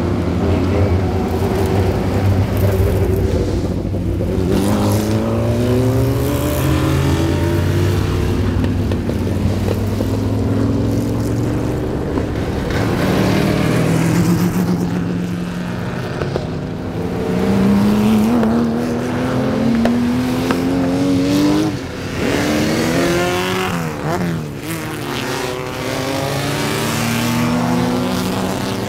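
Several race car engines accelerating past one after another, each one's pitch climbing in repeated sweeps as it pulls away, over a steady low engine rumble. One car passes close about three-quarters of the way through.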